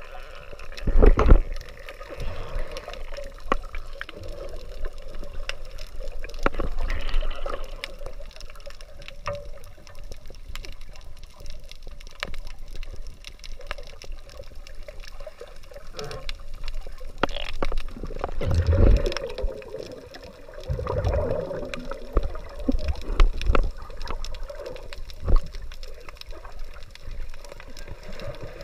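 Muffled underwater sound from a camera held below the surface: water sloshing and gurgling against it, with a few dull low thumps, the loudest about a second in and more about two thirds of the way through.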